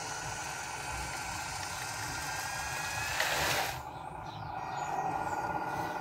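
Huina 573 RC dump truck's electric tipper motor whining steadily as it raises the loaded bed, with a brief louder rush about three seconds in as the soil starts to slide out.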